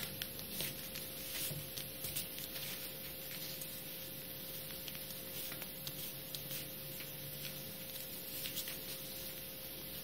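A small square of paper being folded and creased by hand, with scattered light rustles and taps against a steady faint hum.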